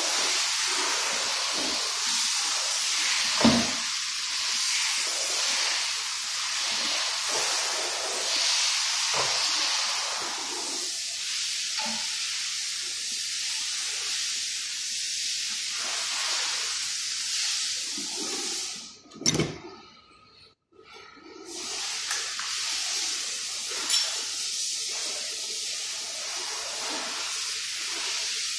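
Steady hiss, with a sharp knock a few seconds in and another about two-thirds through, just before the sound drops out briefly.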